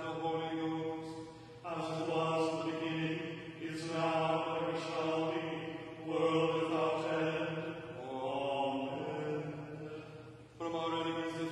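Anglican liturgical prayer chanted on one reciting note, in phrases a couple of seconds long with short breaths between, falling to a lower cadence about eight seconds in.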